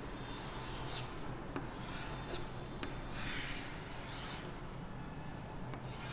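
Pen or chalk scratching on a classroom board as a wave is drawn, in a few separate strokes with small taps between them.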